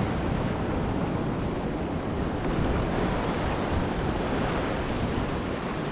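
Small waves washing steadily onto a sandy shore, with wind buffeting the microphone.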